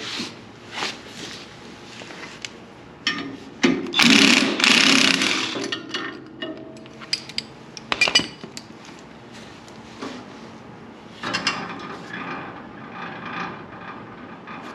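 Metal tools clanking and knocking while a tight, stuck pulley is being forced off the sawmill's Predator 420 motor shaft with a puller. Scattered sharp knocks run throughout, a loud harsh rasping noise lasts about a second and a half from about four seconds in, and there is a sharp crack about eight seconds in.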